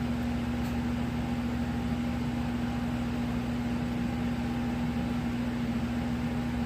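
Steady machine hum: a constant low tone over a soft even hiss, with no change in level.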